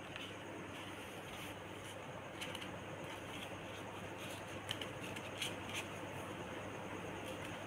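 Paper banknotes rustling softly in a small child's hands as the notes are handled and sorted, with a few sharper crinkles in the second half over a steady background hiss.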